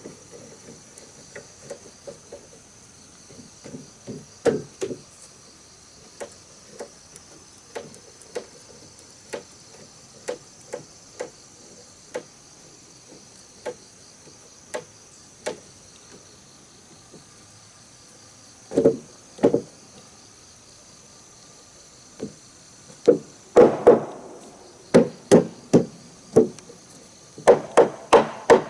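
A hand tool striking wood: scattered single knocks, a pair of heavier blows past the middle, then a quicker run of louder strikes in the last few seconds. A steady, high insect chorus runs underneath.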